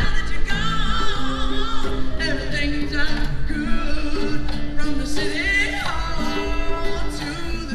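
Live band playing, with a singer's voice holding wavering notes over a steady bass line.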